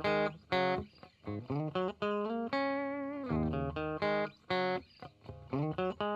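Background music: a plucked guitar tune of quick, separate notes.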